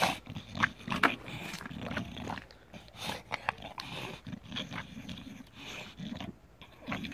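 An English bulldog with its snout in the snow, breathing heavily as it noses and bites at it, with sharp crunches of snow, the loudest right at the start and about a second in.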